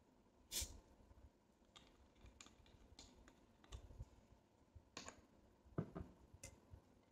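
Scattered faint clicks and light taps from a plastic soda bottle being handled, with one sharper click about half a second in and a few more near the end.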